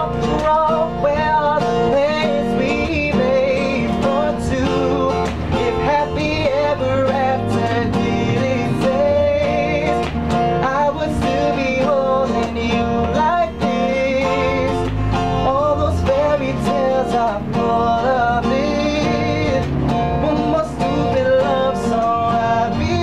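A man singing a pop love song with guitar accompaniment.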